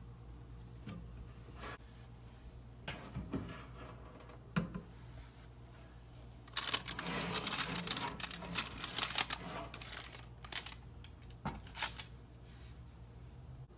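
Handling sounds at a countertop toaster oven: scattered light clicks and knocks of metal, then a few seconds of busy clicking and rustling about halfway through, over a low steady hum.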